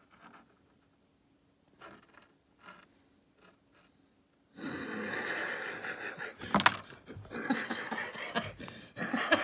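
Paper rustling and crinkling as a folded, multi-page instruction leaflet is handled. A few faint rustles come first, then from about halfway through a loud continuous crackle, with one sharp snap of the paper about two-thirds through.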